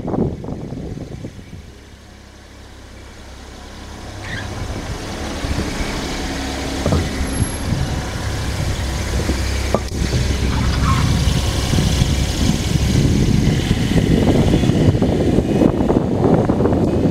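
Car driving, heard from a camera mounted on its body by the wheel: tyre and road rumble with wind on the microphone. It drops low about two seconds in, then builds steadily as the car picks up speed, with two short knocks near the middle.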